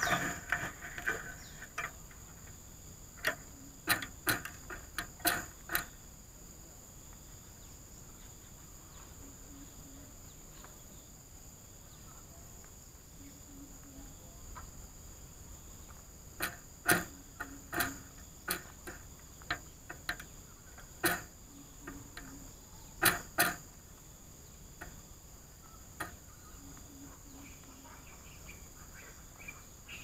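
Steady high-pitched insect buzz from crickets or cicadas. It is broken by sharp taps and knocks close to the microphone, a handful about three to six seconds in and a longer run about two-thirds through.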